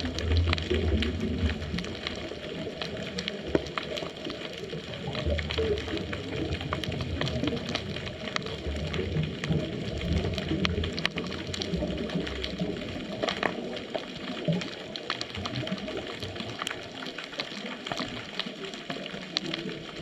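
Underwater ambience recorded through a GoPro housing on a scuba dive: a muffled low rumble of moving water that swells and fades every few seconds, with many scattered sharp clicks.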